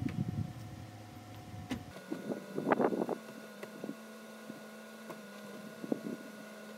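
Lexus SC430's power-retractable hardtop opening: a steady whine of the roof mechanism's pump starts about two seconds in and holds, with a few clunks and clicks from the mechanism near the start.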